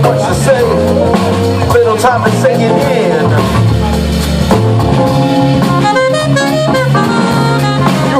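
Live jazz band playing through a PA: drum kit and electric bass under a saxophone, guitar and keyboard, with a vocalist on the microphone.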